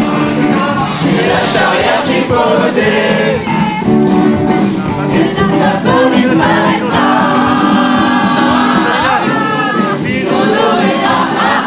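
A song playing: several voices singing together over backing music, without a break.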